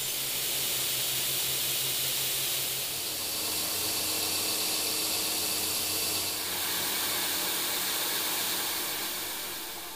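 Belt grinder running with steel being ground against the belt: a steady, loud hiss over a motor hum, whose tone shifts twice, about three seconds in and again past six seconds.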